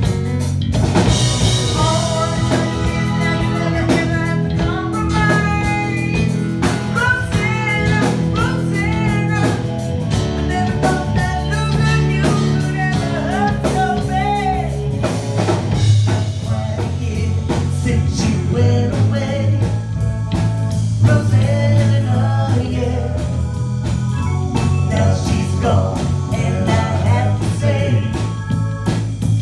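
Live band playing yacht rock: a woman sings lead into a microphone over electric bass guitar, drum kit and keyboards.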